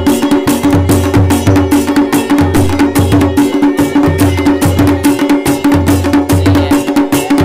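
Chholiya dance music: dhol and damau drums beat a fast, driving rhythm under a steady droning note.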